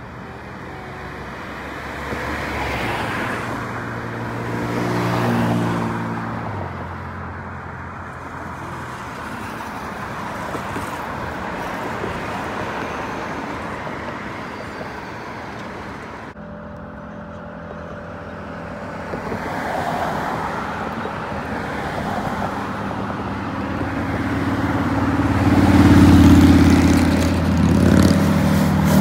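Engine and road noise of a moving road vehicle. The engine pitch steps and glides as it speeds up, and it grows loudest near the end.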